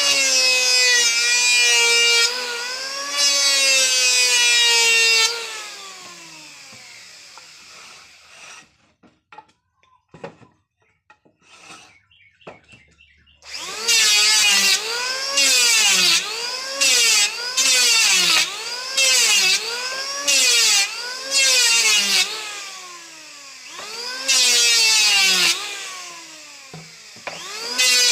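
Electric wood planer's motor whining as it shaves a board: the pitch sags each time the blades bite into the wood and climbs back between cuts. It winds down about five seconds in, with a few light knocks in the quiet gap, then starts again about halfway and makes a string of short repeated passes.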